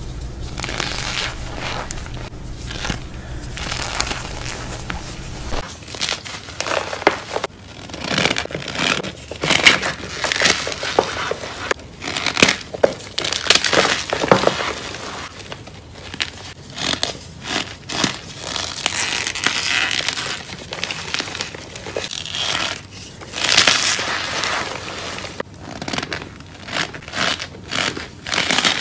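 Hands squeezing and crushing cornstarch and cornstarch-packed gym chalk blocks: irregular crunching and crumbling of packed powder, with short bursts coming one after another. A steady low hum sits under the first few seconds and stops about six seconds in.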